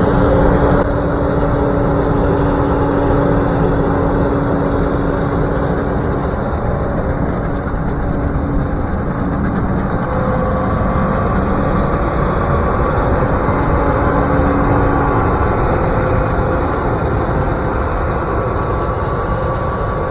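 Combine harvester running steadily at work, a dense, even machine noise with a droning hum that holds and fades in and out.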